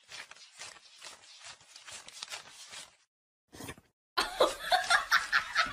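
A thick stack of paper banknotes riffled and flicked, a soft quick rustling. About four seconds in, loud laughter starts in rapid bursts, about three a second.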